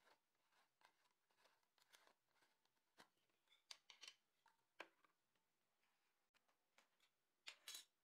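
Faint clicks and scrapes of a screw-on lid being twisted off a small clear jar and laid down on a tray, with the jar set down too; a short burst of louder handling noise comes near the end.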